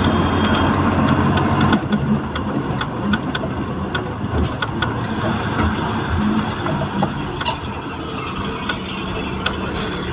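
Truck engine running, heard from inside the cab, with road noise and small rattles. The low engine hum drops about two seconds in, and the engine runs more quietly as the truck closes up on slow traffic.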